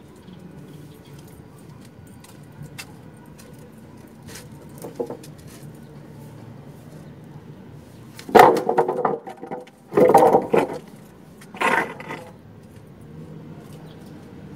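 Wooden planks set down on a concrete floor, clattering in three sudden bursts in the second half, the first the loudest.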